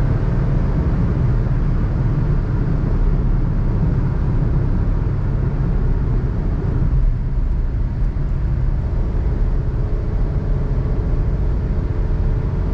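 Suzuki Alto 660cc three-cylinder engine and road noise at highway speed after a full-throttle run, steady and low-pitched. About seven seconds in, the higher part of the noise drops away.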